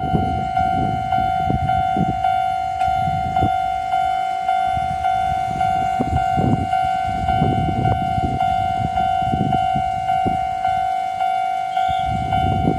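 Japanese railway level-crossing warning bell ringing: an electronic tone repeated about twice a second, the signal that a train is approaching and the barriers are down.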